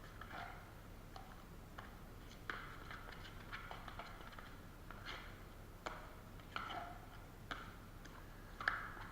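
Taping knife mixing fast-setting joint compound in a mud pan: irregular scrapes of the blade through the mud, with sharp clicks as it strikes the pan.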